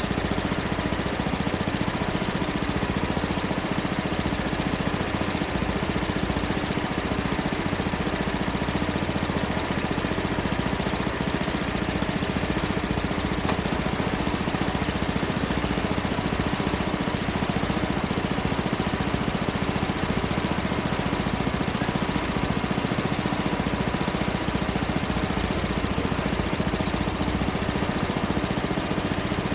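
Tractor engine running steadily while it moves a log onto a sawmill bed.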